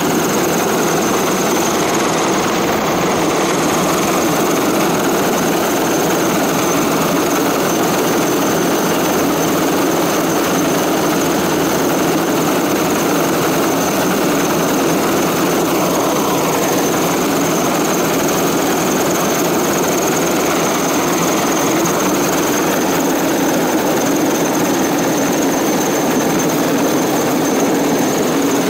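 Chinese Navy helicopter hovering low overhead: a loud, steady rush of rotor and turbine noise, with a thin steady high whine above it.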